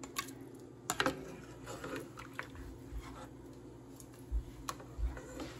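A few faint clicks and soft taps of kitchen handling as blanched broccoli florets are moved from the pot into a bowl of cold water, with a few dull low thumps in the second half.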